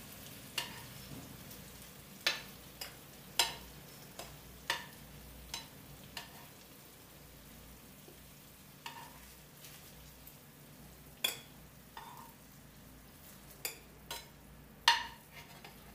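Meatballs frying in a pan of oil with a faint steady sizzle, while a metal utensil clinks sharply against the frying pan and plate about a dozen times at irregular intervals as the fried meatballs are lifted out, the loudest clink near the end.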